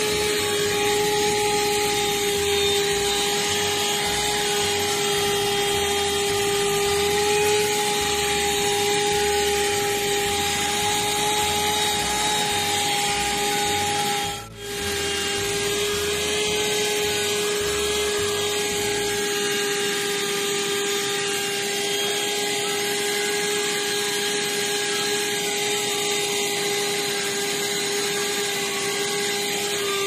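Krisbow portable car vacuum cleaner, powered from the cigarette-lighter socket, running with a steady high whine as its flat nozzle is worked over carpeted floor mats. The sound drops out briefly about halfway through.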